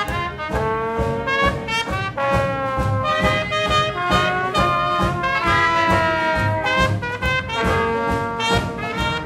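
Traditional New Orleans jazz band playing a swing tune: trumpet, clarinet and trombone together over banjo, piano, double bass and drums keeping a steady beat.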